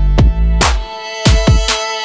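Electronic background music with a heavy bass beat and sustained synth tones.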